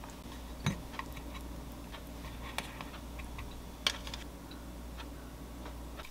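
Light clinks and taps of metal tongs against a stainless steel divided tray as food is served onto it and the tray is handled and set down. The clicks come at irregular moments, the sharpest just under a second in and about four seconds in, over a low steady hum.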